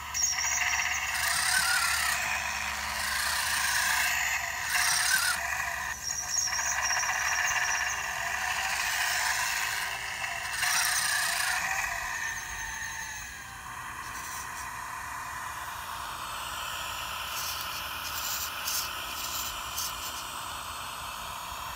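Simulated half-track engine sound from the RC model's electronic sound unit, played through a small speaker with no bass: it revs up and down in pitch, then settles to a steadier, quieter idle about 14 seconds in, with a few brief clicks near the end.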